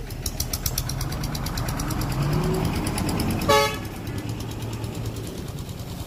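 A heavy diesel engine of earth-moving machinery running and revving up, with one short horn toot about three and a half seconds in.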